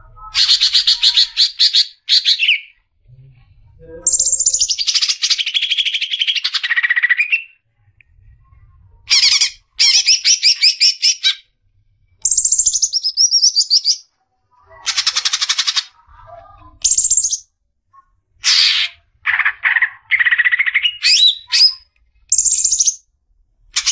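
Cucak ijo (green leafbird) in full, varied song (ngoceh): loud, high-pitched phrases of rapid trills and whistled sweeps, one to three seconds long, broken by short pauses, with a few rising whistles toward the end.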